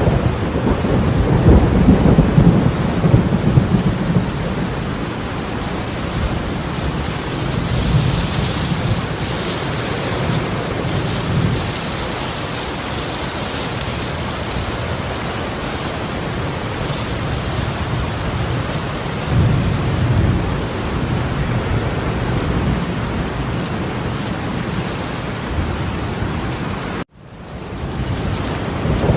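Heavy rain pouring steadily, with deep low rumbles swelling early on and again about two-thirds of the way through. The sound cuts out abruptly near the end and fades back in.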